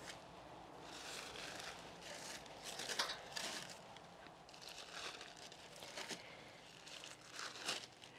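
Faint crinkling and rustling of thin paper as paper-wrapped tacos are handled and laid into a steamer pot, in a series of short, soft bursts, the loudest about three seconds in.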